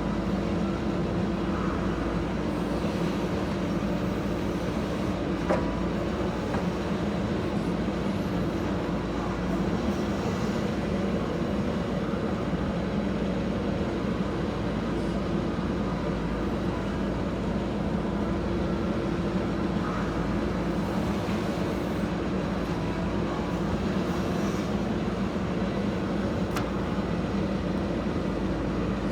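JCB 3DX backhoe loader's diesel engine running steadily under work while it loads soil, with one brief sharp knock about five seconds in.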